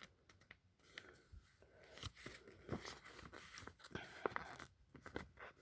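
Faint rustling and light clicks of paper being handled as pages of an instruction manual are turned.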